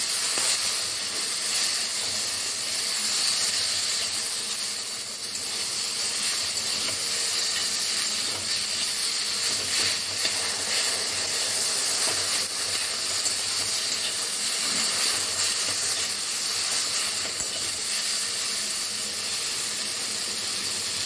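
Whole jujubes sizzling as they fry in hot oil in a kadai: a steady frying hiss.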